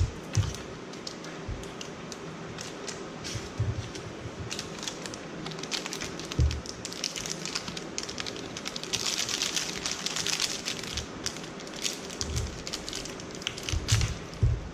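Plastic wrapper crinkling and crackling as it is handled and torn open by hand, with a louder rustling stretch past the middle and a few low thumps of handling.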